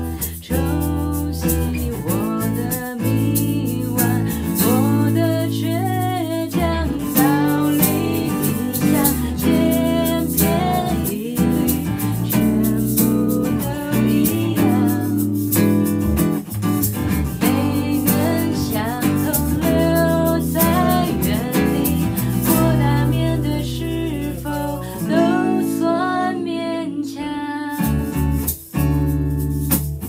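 Live band playing a Mandarin pop song: acoustic guitar and electric bass under a woman singing.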